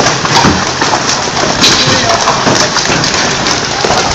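Hailstones and heavy rain pelting down on a wet concrete path and lawn: a loud, dense clatter of individual hail impacts over a steady hiss of rain, with one sharper crack about a second and a half in.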